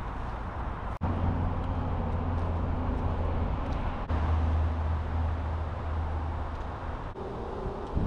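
Steady outdoor background noise: a low rumble under a hiss, changing abruptly at cuts about 1, 4 and 7 seconds in.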